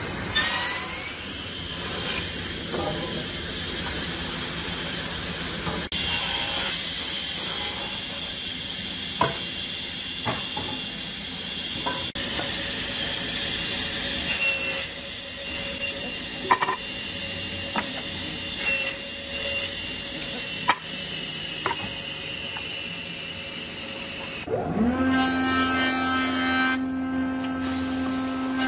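Table saw ripping hardwood boards: the blade runs with a steady high whine that grows into a harsh cutting noise on each pass, with scattered knocks. About 25 seconds in, a jointer starts, its motor spinning up to a steady hum.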